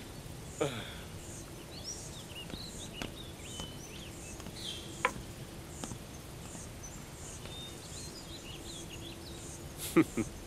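Outdoor ambience: a high insect chirp repeating steadily about every two-thirds of a second, with scattered short bird chirps. A couple of sharp knocks come near the end.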